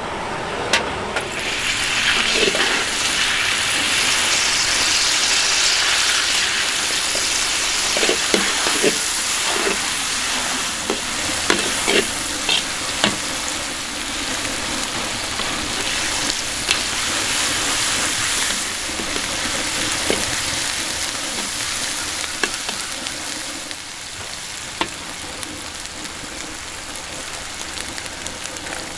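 Food frying with a steady sizzle that grows louder about two seconds in, with scattered sharp clicks and knocks from stirring, several of them between about 8 and 13 seconds in.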